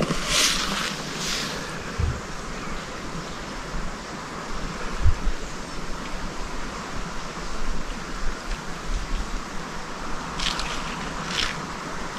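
Steady rushing outdoor noise with a few short crunching footsteps on the path, a couple near the start and a couple near the end.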